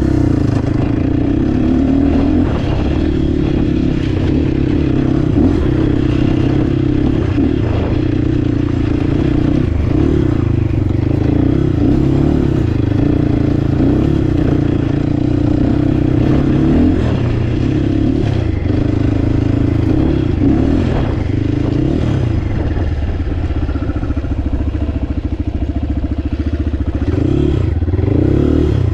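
Crossfire HJ250 dirt bike's engine running at low speed on a rough dirt track, its note rising and falling with the throttle. Short clattering knocks come from the bike jolting over stones and ruts.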